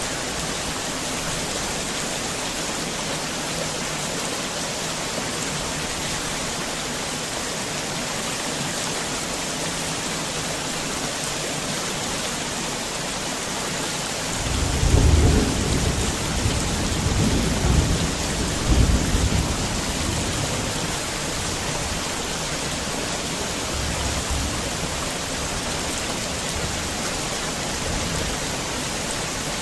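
Heavy rain falling steadily. About halfway through, a low rolling rumble of thunder comes in and lasts about five seconds, swelling three times.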